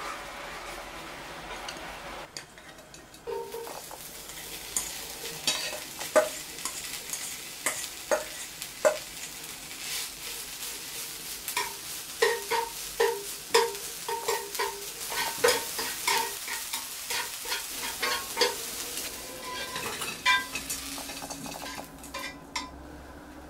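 Red chili sauce sizzling in a frying pan as a wooden spoon stirs it. After about two seconds this gives way to shredded dried pollack being tossed in the hot pan with wooden chopsticks: a steady sizzling rustle with many quick clicks of the chopsticks against the pan. It quietens near the end.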